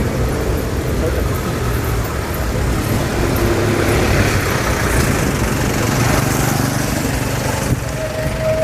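Festival street ambience: a steady rumble of traffic mixed with the chatter of a large crowd. A single held tone sounds briefly near the end.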